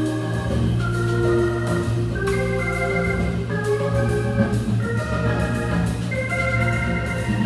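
Hammond B3 organ playing sustained notes and chords over a steady walking bass line, with light drum-kit cymbal work behind it.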